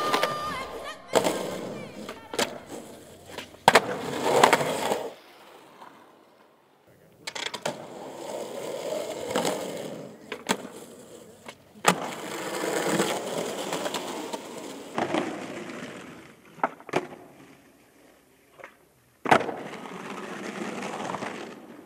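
Skateboard on concrete: urethane wheels rolling and scraping along ledges and pads, cut through by sharp clacks of tail pops and landings. The sound comes in several separate runs with short quiet gaps between them.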